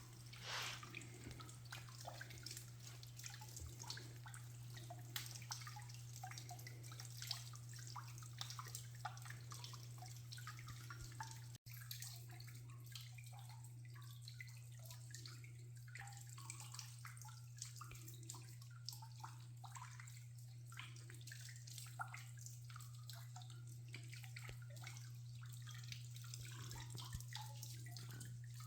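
Water trickling and dripping: many small irregular drips and splashes over a faint steady low hum, with a momentary break near the middle.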